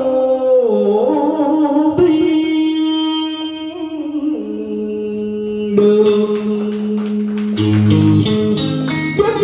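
Male voice singing long held notes in Vietnamese cải lương style over guitar. Over halfway through the singing ends and the guitar carries on alone with a plucked melody, with bass notes added near the end.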